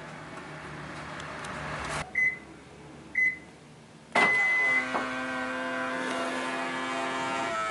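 Subaru Legacy BR/BM power-folding side mirror unit: its motor runs for about two seconds and stops. Then come two short high beeps and a longer one, followed by a steady pitched whine from the mirror motor for nearly three seconds. The whine is the mirror-unit noise common on early (A-type) BR/BM Legacys.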